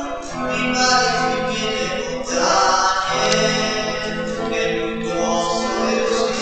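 A hymn sung by several voices, with held notes, accompanied by acoustic guitar.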